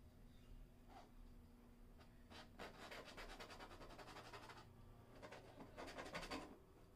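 Faint scratching and rubbing of a brush working thick white paint onto a stretched canvas. There is one stroke about a second in, then a long run of quick strokes, and a shorter run near the end.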